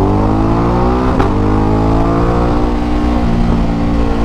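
Ducati DesertX's 937 cc Testastretta V-twin engine accelerating under way, its pitch rising, with a quick upshift about a second in, then pulling on at a slowly rising, then steady pitch.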